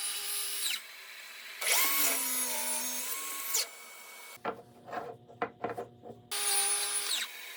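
Power tool motor whining in short bursts, spinning up and winding down, with a run of irregular knocks in between.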